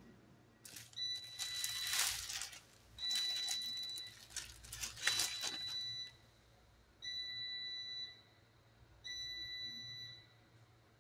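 An electronic alarm beeping in long steady tones, about five of them, each a second or more. Loud rustling noise sounds over the first few beeps.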